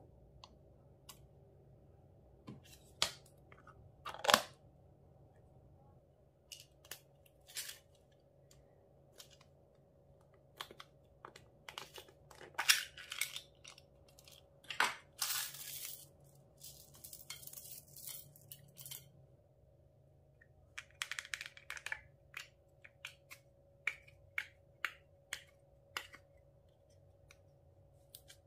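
Small plastic containers being handled and opened over a tray of slime, with scattered sharp plastic clicks and crackles. There are a couple of longer rustling stretches in the middle and a run of roughly evenly spaced clicks near the end.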